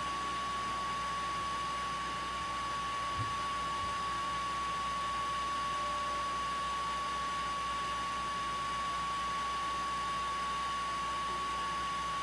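A steady, high-pitched pure tone over an even hiss, with a faint low knock about three seconds in.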